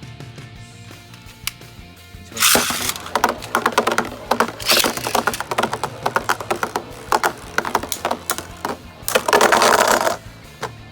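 Beyblade Burst tops launched into a plastic stadium a couple of seconds in, then spinning and clashing with rapid clicks and scraping rushes, with a louder scrape near the end as the round ends; background music plays throughout.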